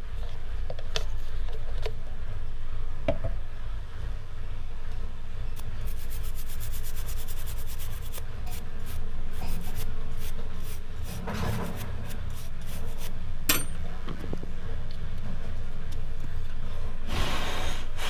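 Brushing and rubbing on a mobile phone's circuit board as it is cleaned after a charging jack was soldered in, with scattered small clicks and a fast run of ticks. Louder scrubbing spells come about two-thirds of the way through and again near the end, over a steady low hum.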